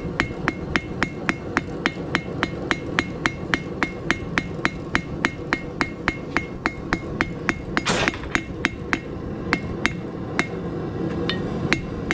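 Blacksmith's hammer striking hot steel on an anvil in quick, light, even blows, about four a second, each with a short metallic ring, rounding the square stock into a round point. About two-thirds of the way through a brief noisy burst cuts in, and the blows after it come slower and less regularly.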